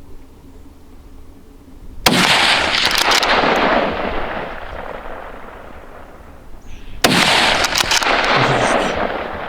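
Two gunshots about five seconds apart, each a sharp crack followed by a long rolling echo that fades over a couple of seconds.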